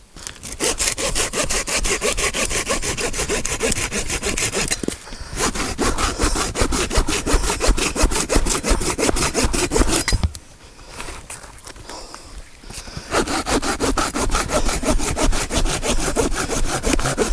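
Small Japanese pull saw cutting through wood in quick, even strokes. It saws in three bouts, with a brief pause about five seconds in and a longer one from about ten to thirteen seconds.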